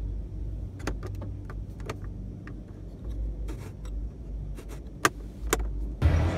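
Round plastic dashboard air vent of a 2017 Dacia Duster being turned and adjusted by hand, giving a string of light plastic clicks and ticks, two sharper clicks near the end, over a low hall rumble. A louder wash of background noise cuts in just before the end.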